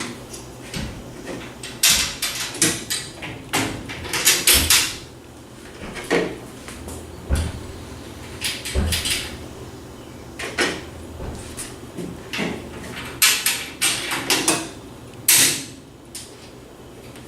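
Irregular knocks, clicks and scrapes of tree stand rail and platform parts being handled while bolts are fed through their holes and nuts are hand-tightened. The clatter is loudest in clusters at about 2 seconds, 4 to 5 seconds and 13 to 15 seconds.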